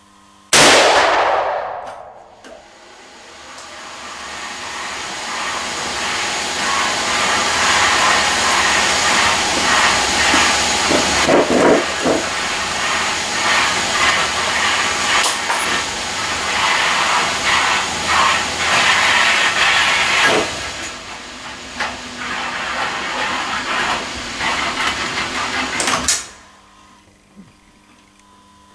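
A single .30-06 rifle shot about half a second in, ringing out briefly in the indoor range. A loud, steady rushing hiss then builds over several seconds, holds, and cuts off abruptly near the end.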